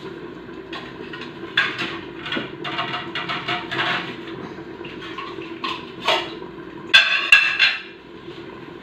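Metal kitchenware clattering as a plate is taken out and handled: a run of knocks and scrapes, with a louder ringing metallic clang about seven seconds in, over a steady low hum.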